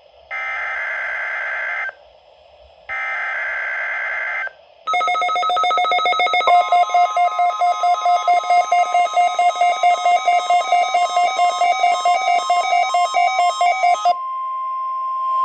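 Two raspy data bursts of a NOAA Weather Radio SAME header for the weekly test, each about a second and a half long with a second's gap. Then a weather alert receiver beeps rapidly, and the steady 1050 Hz Warning Alarm tone comes in under it about a second and a half later. The tone carries on alone for about a second after the beeping stops.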